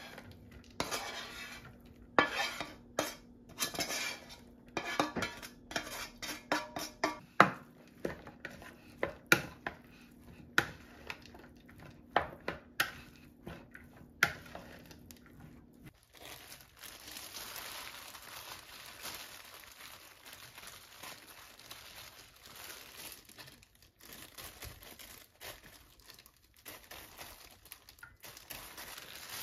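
A spatula scrapes a frying pan and knocks and clinks against a glass mixing bowl, over a dozen sharp hits, as stir-fried filling is mixed into rice. About halfway through, this gives way to a steady, softer crinkling of plastic kitchen gloves pressing rice onto a sheet of seaweed.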